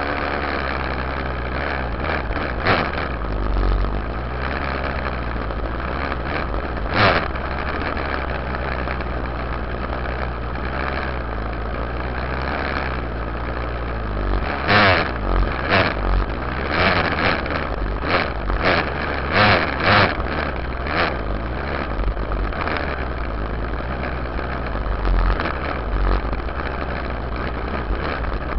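Yamaha YZ dirt bike engine idling, heard from the rear fender, with a run of short throttle blips about halfway through.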